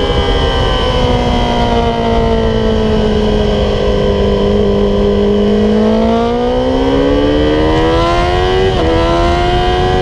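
Yamaha YZF-R6 inline-four with an MGP Growler exhaust, heard from on board: the engine note falls steadily as the bike slows into a corner, then climbs from about halfway as the rider gets back on the throttle, with a quick shift near the end. Wind rushes over the microphone throughout.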